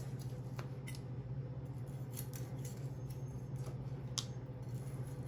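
Knife slicing cooked tri-tip on a cutting board: a few faint cutting scrapes and taps, over a steady low hum.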